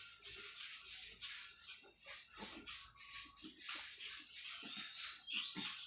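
Pet dogs making a run of short, irregular low sounds close by, over a steady background hiss.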